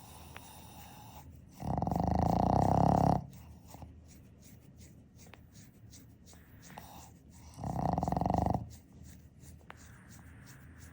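A sleeping Boston terrier snoring: two loud, buzzing snores about six seconds apart, the first lasting about a second and a half and the second about a second.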